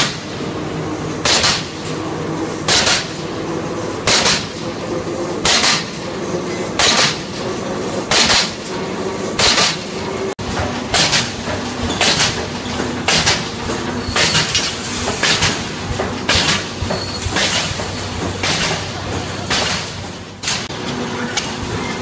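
Automatic wire mesh welding machine running: sharp, regular clanks of its welding and feed strokes over a steady machine hum, at first about every second and a half, then coming closer together in the second half.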